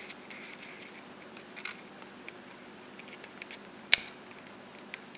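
Small clicks and scrapes as 35mm film is fitted into a 1972 Konica Autoreflex SLR, then one sharp click about four seconds in as the camera's back door latches shut.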